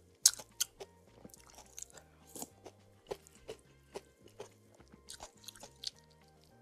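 Close-miked eating sounds of a person chewing spicy soup noodles and meatballs: irregular wet smacks and mouth clicks, several a second, the loudest about a quarter-second in, over soft background music.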